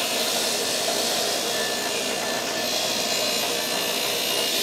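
Bench grinder's wire brush wheel running steadily against the end of a black iron pipe, scrubbing off grease and coating to clean the metal before welding.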